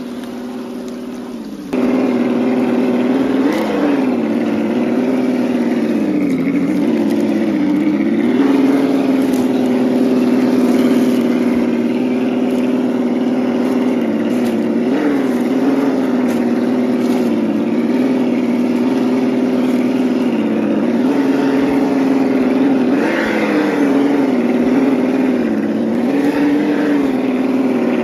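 Electric motor and gear drive of a 1/8-scale RC crawler whining as it drives over rough ground, its pitch dipping and rising with throttle and load. The sound gets suddenly louder about two seconds in.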